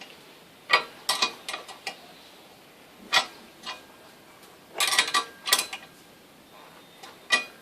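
Metal parts and tools being handled, giving irregular sharp clinks and clanks in several small clusters, some ringing briefly.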